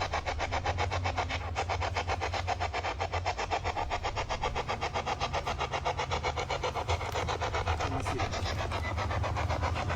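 Radio-sweep static from a ghost-hunting spirit box scanning through AM stations, chopping at an even rate of several beats a second over a steady low rumble.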